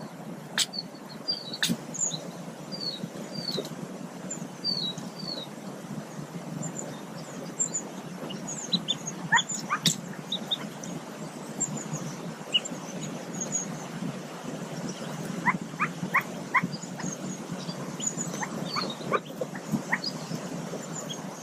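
Mallard ducklings peeping in short high chirps from the nest under the brooding hen, scattered throughout, with a few sharp clicks and a low rough rustling noise underneath.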